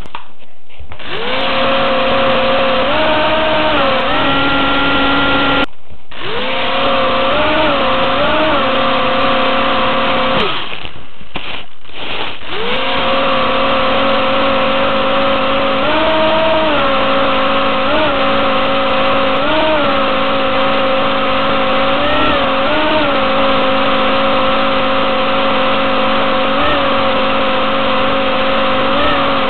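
Small hovercraft's motor and lift fan running close to the microphone with a steady pitched drone, rising briefly in pitch several times as the throttle is opened. The sound cuts out for a moment about six seconds in, and again for about two seconds around eleven seconds in, before starting back up.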